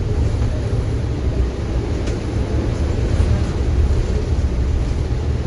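Inside a moving MTA city bus: a steady low engine rumble with road noise.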